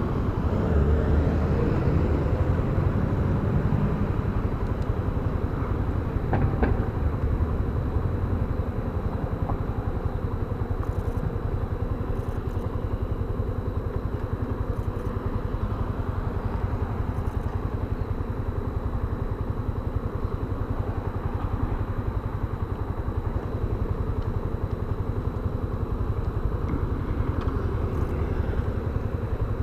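Yamaha Fazer 250 BlueFlex's single-cylinder engine running steadily.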